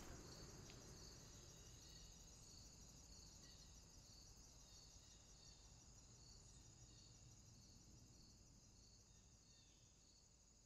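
Faint crickets chirping in an even rhythm, about two chirps a second, over a steady high insect trill, fading out.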